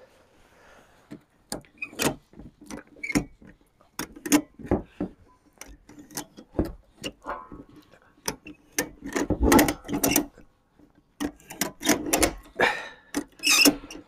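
Ratchet strap being tightened around a wooden outhouse: quick ratchet clicks in irregular bursts, louder and closer together in the second half.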